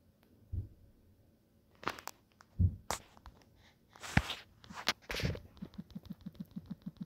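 Light taps and knocks from a smartphone being handled and its touchscreen tapped. The sounds are scattered at first, then turn into a quick, even run of light taps at about six a second near the end as a new search is typed.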